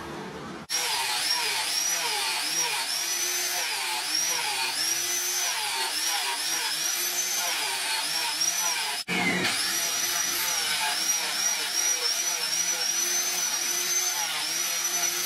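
Electric angle grinder with a flap disc sanding a wooden knife handle, its whine wavering up and down in pitch as the disc bears on the wood. The sound breaks off briefly about nine seconds in.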